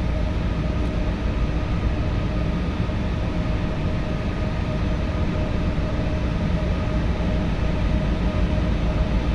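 Trane air conditioner running: a steady hum and rush of air with a few constant tones underneath.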